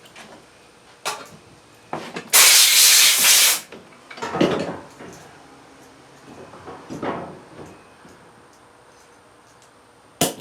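A loud burst of pressurized hiss lasting a little over a second, about two seconds in, with sharp clicks and softer knocks of parts being handled before and after it.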